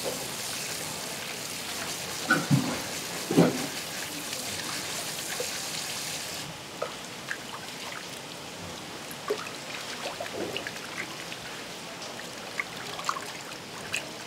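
Tap water running into a steel bowl of mackerel while gloved hands slosh and rub the fish clean, with a few sharp splashes about two to three seconds in. The running water stops about six seconds in, leaving small wet splashes and clicks of the fish being handled in the bowl.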